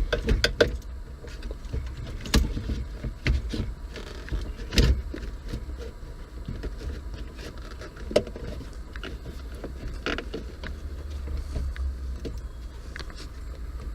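Scattered clicks and knocks of hands working on a pickup's dashboard around the stereo, plastic trim and the radio being handled, over a steady low rumble.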